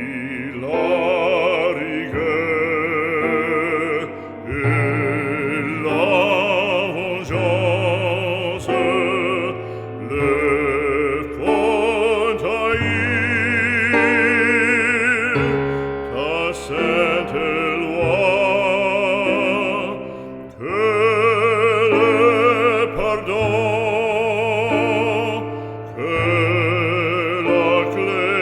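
Background music: a solo operatic voice singing long held notes with wide vibrato over orchestral accompaniment.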